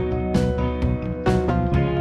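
Background music: a guitar-led track with notes struck at a steady pace, about two a second.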